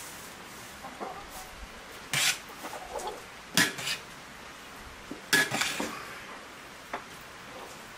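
Metal kitchenware clinking and clattering while food is handled: a run of short, sharp knocks, the loudest about three and a half and five and a half seconds in.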